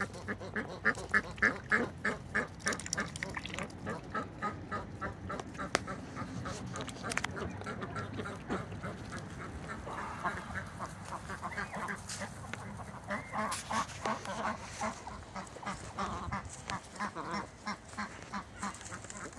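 Domestic ducks quacking and chattering as they drink and dabble their bills in a tub of water. A quick run of short, regular pulses fills the first few seconds, and scattered clusters of quacks follow later on.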